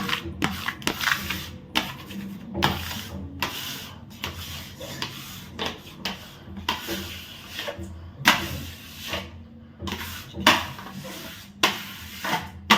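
An irregular series of short knocks, clicks and scrapes, a few a second, as hard objects are handled and rubbed against a surface.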